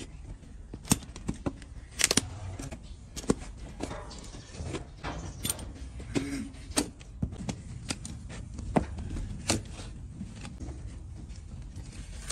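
Hoof-trimming tools cutting and scraping a donkey's overgrown, thick hoof: irregular sharp clicks and cracks, with short bouts of scraping between them.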